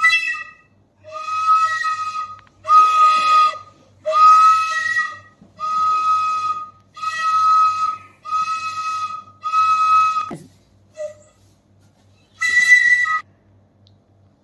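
Bansuri-style flute melody: about eight held notes of roughly a second each, nearly all on the same pitch, then a short pause and a single higher note near the end.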